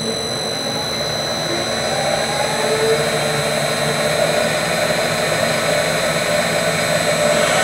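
A 1/3 hp three-phase Lightnin mixer motor, run by a variable frequency drive, speeding up with its propeller spinning in air: a hum that slowly rises in pitch and grows louder, with a steady high-pitched whine over it.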